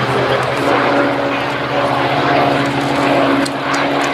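Two Supermarine Spitfires flying past in formation overhead, their piston engines and propellers running steadily.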